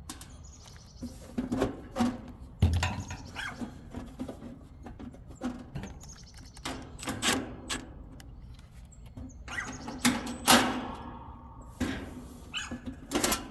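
Irregular knocks, clicks and rustling from handling tools and metal equipment panels, with a heavy thud about two and a half seconds in and the loudest clack near ten and a half seconds.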